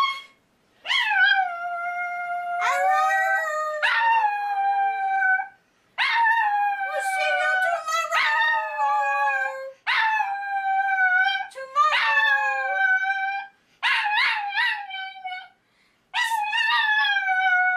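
Chihuahua howling: a run of about eight drawn-out howls, each a second or two long and sagging in pitch at the end, with short breaks between.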